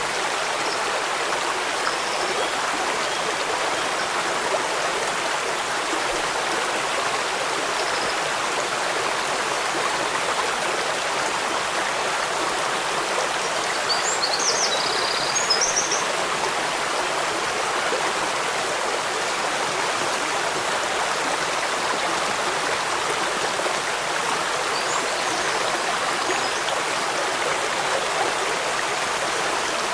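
Steady rush of flowing water from a stream, with a few brief high chirps about halfway through.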